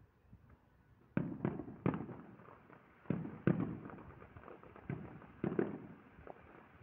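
Distant aerial fireworks bursting: a string of about eight sharp bangs, some in quick pairs, each trailing off, starting about a second in.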